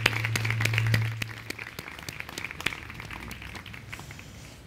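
Audience applauding. The clapping thins out and fades away over the first few seconds. A low steady hum stops about a second and a half in.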